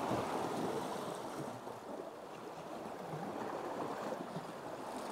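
Sea water washing against rock ledges in a steady wash, with no distinct splashes or knocks.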